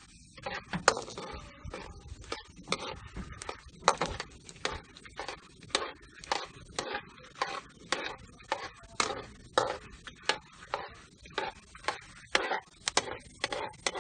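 Popcorn being chewed close to the microphone: a steady run of sharp crunches, about two a second.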